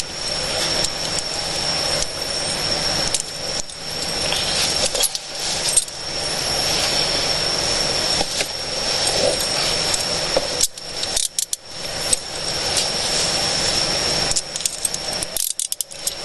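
Metal handcuffs jingling and clicking as they are handled and fitted onto a detainee's wrists, over steady background noise.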